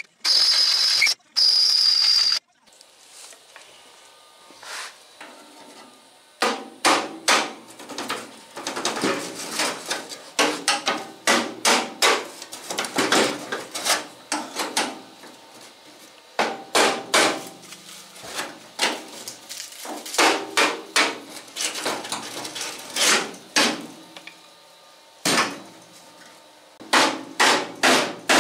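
A cordless drill bores into the steel firewall panel for about two seconds with a high-pitched squeal, cutting out spot welds. After a pause, a hammer strikes a chisel against the sheet-steel firewall again and again in quick clusters of blows, with short breaks, splitting the panels apart at the welds.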